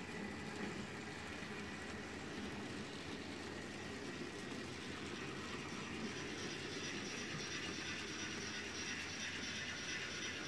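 H0-scale model train running on the layout track: a steady rolling rumble, with a higher hiss that grows louder from about six seconds in as the train draws nearer.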